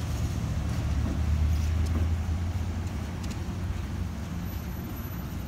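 Diesel-hauled passenger train rolling by and pulling away: a steady low rumble from the locomotives and wheels, loudest about a second and a half in, then slowly easing off.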